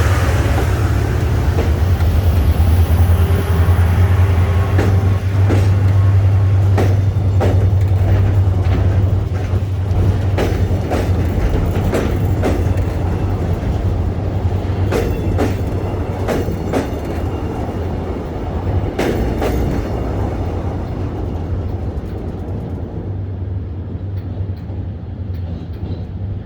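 V-Train pulling out of the station: a steady low engine drone with a run of wheel clicks over rail joints through the middle, the whole sound slowly fading as the train moves away.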